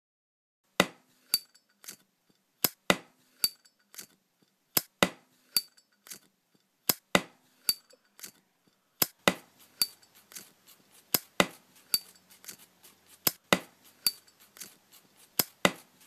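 Sharp metallic clicks and clinks from Zippo lighter gear, tapped and snapped in a steady beat. The pattern is sparse at first and grows denser about nine seconds in.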